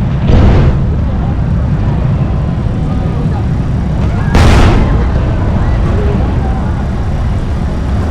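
Fireworks shells bursting: two sharp booms about four seconds apart over a heavy, continuous low rumble of further explosions.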